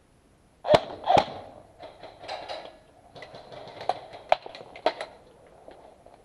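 Two loud sharp cracks about half a second apart, then a scattered run of lighter clicks and gritty scuffs, like steps over debris on a concrete floor.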